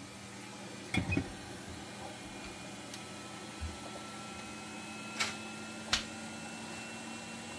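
Steady low electrical hum from bench equipment, with a faint thin whine above it and a handful of light clicks and taps, the loudest a double click about a second in and two more around five and six seconds in.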